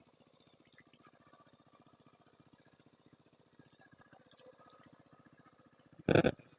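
A small engine runs steadily in the background with a rapid, even low pulse. Near the end a single brief, loud bump cuts across it.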